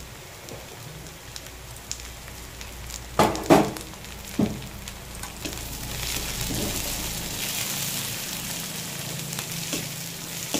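Onions, garlic, ginger and green chillies sizzling as they fry in oil in an aluminium kadai, stirred with a metal spatula that scrapes the pan. A few louder knocks of the spatula on the pan come about three to four and a half seconds in, and the sizzle grows stronger from about six seconds in.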